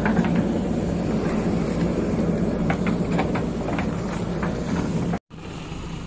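JCB backhoe loader's diesel engine running steadily under load as the backhoe digs soil, with a few sharp metallic clanks and rattles from the bucket and arm in the middle. Near the end the sound cuts out for a moment and the engine returns quieter.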